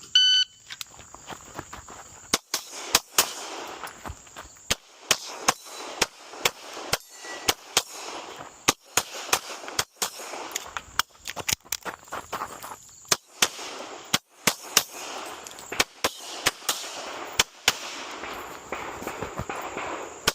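A shot timer's start beep, then a handgun firing a long string of shots at an uneven pace, in quick groups broken by short pauses.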